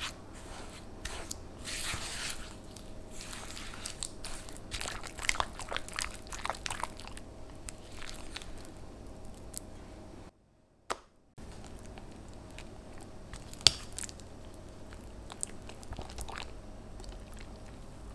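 Crunching and crackling of cookies being crushed by hand for a cheesecake crumb base, with irregular sharp cracks. The sound breaks off briefly about ten seconds in, then goes on more sparsely with one sharp snap near the end.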